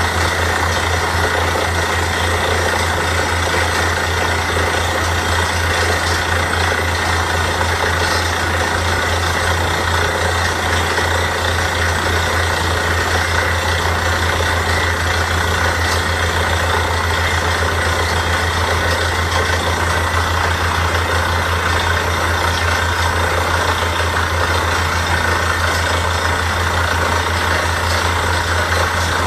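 Borewell drilling rig running steadily, a constant low engine hum with a broad mechanical rush over it.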